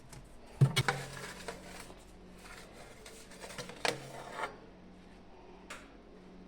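Kitchen handling sounds: a sharp knock about a second in, then scraping and a few lighter knocks of pans or dishes being moved, over a faint steady low hum.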